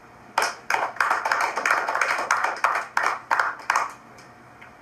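Small audience applauding briefly after a poem: a patter of hand claps that starts about half a second in and stops before the end.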